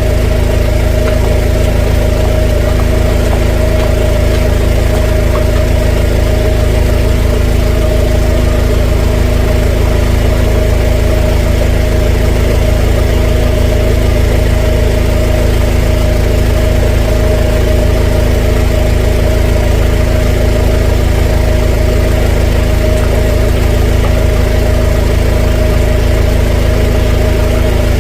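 Drain jetter's engine and pump running steadily at a constant speed, with a strong steady hum and low rumble.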